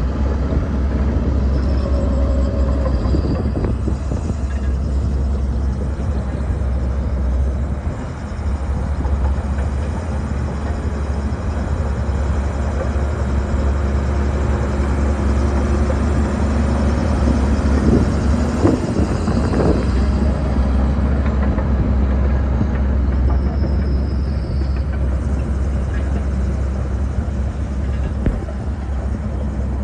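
Bulldozer's diesel engine running steadily with a deep rumble, dipping briefly about eight seconds in, with a few knocks or clanks of the machine at work about eighteen to twenty seconds in.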